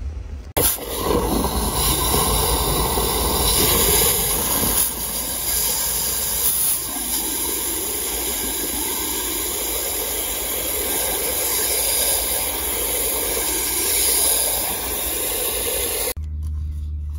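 Garden hose spray nozzle running water at full flow into a grease-clogged PVC drain pipe, flushing the line, with water splashing back out of the pipe onto the ground. It is a steady, loud hiss that starts about half a second in and cuts off suddenly shortly before the end.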